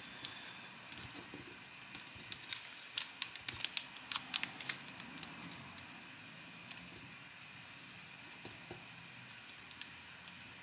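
Origami paper being folded and creased by hand: crisp little clicks and crackles of the paper, thickest between about two and five seconds in, then only now and then.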